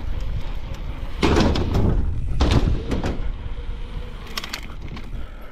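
Bicycle rolling over cracked asphalt, with a steady low rumble of tyres and wind. A few louder rattling knocks and scrapes come between about one and three seconds in, and a few light clicks follow a little later.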